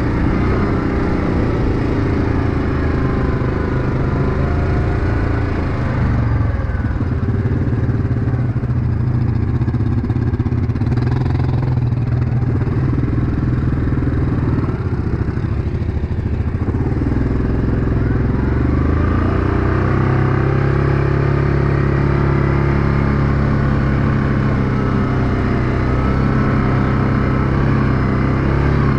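Yamaha Grizzly ATV's single-cylinder engine running under way on a rutted dirt trail. Its note dips and wavers with the throttle about six seconds in, then settles to a steady pitch for roughly the last ten seconds.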